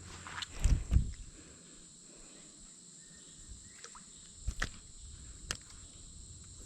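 Steady high insect drone, typical of crickets, with two heavy thumps about a second in and a few sharp clicks later.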